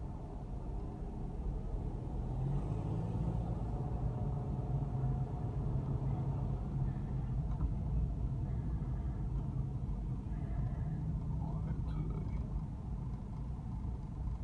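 Vehicle cabin noise while driving: the engine and tyres give a steady low rumble heard from inside the car.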